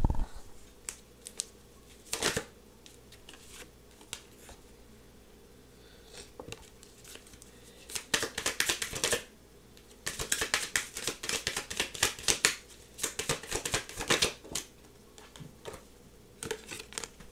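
A deck of tarot cards being shuffled by hand: scattered single flicks, then a dense run of rapid papery flicks about eight seconds in and a longer run of about four seconds soon after.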